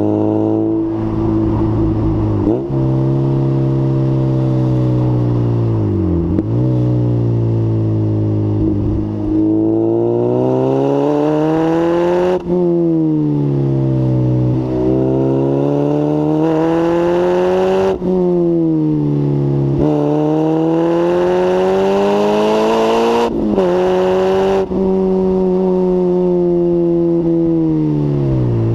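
Lotus Elise S1 111S's four-cylinder Rover K-series VVC engine through a Bell & Colvill exhaust with the catalytic converter removed, running loud with its pitch climbing and falling over and over, with several sudden drops in revs.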